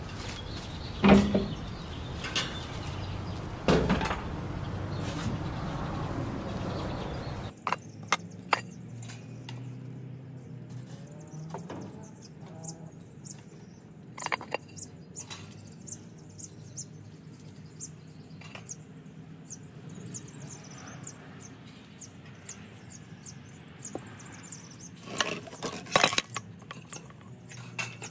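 Terracotta pots and clay saucers being picked up and set down on a wooden potting table: scattered short knocks and clinks, with a cluster of them near the end. A steady hiss is heard under the first several seconds and then stops.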